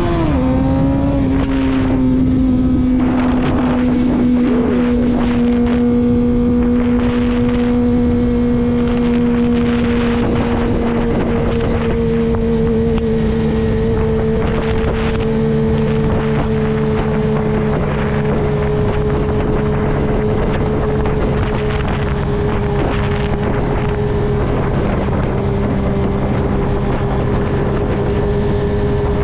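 Motorcycle engine running at a steady cruise, its pitch settling about a second in and then sagging very slowly, under loud wind rushing over the microphone.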